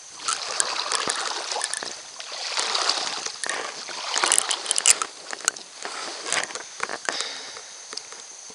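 Water sloshing and splashing around a kayak, in uneven swells, with scattered clicks and knocks of handling.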